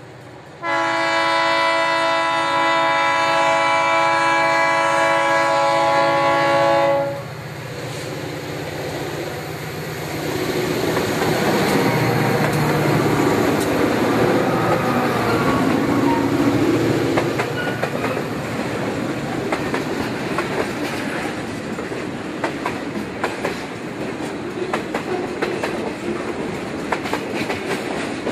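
Freight train's diesel locomotive sounds its air horn in one long blast of several notes at once, about six seconds long, as it approaches. The locomotives then rumble past, and the freight cars follow with their wheels clicking steadily over the rail joints.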